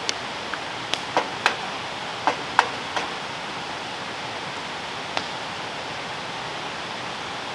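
Eggs being cracked into a hot pan on a camp stove: a run of sharp taps and clicks over the first three seconds and one more about five seconds in, over a steady hiss of sausage and sweet potatoes frying.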